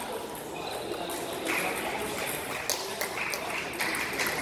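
Table tennis ball clicking off the table and the bats in a rally: a few sharp ticks about half a second apart in the second half, over a murmur of voices.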